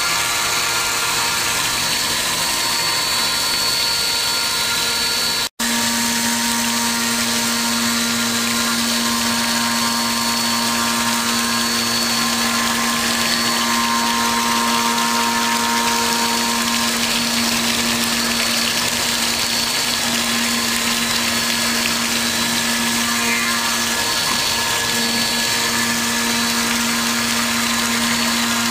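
5-axis CNC machine running through a cut: a steady machine whine made of several held tones over a hiss. The sound cuts out for an instant about five and a half seconds in, and after that a steady hum is stronger.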